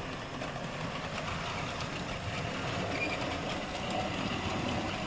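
Hornby K1 OO-gauge model locomotive running along the track under power, its electric motor whirring and its wheels and the wagons behind rumbling over the rails in a steady run.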